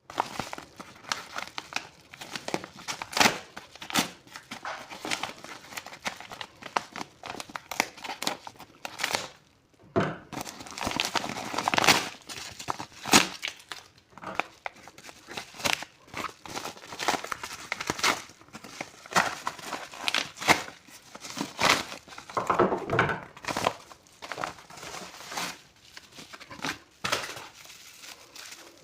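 Trading card packaging being handled and opened: wrappers crinkling and tearing in many irregular sharp crackles and rustles.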